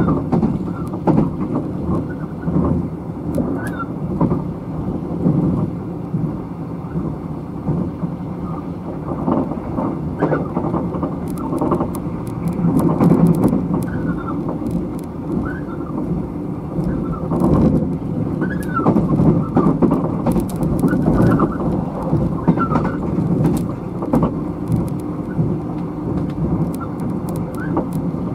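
Running noise inside a State Railway of Thailand sleeper coach on the move: a steady low rumble of wheels on rail and the car body, with short squeaks every few seconds and scattered light rattling clicks.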